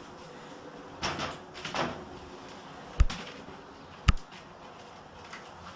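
Dowels being pulled out of an easel's holes: two short scrapes, then two sharp knocks about a second apart.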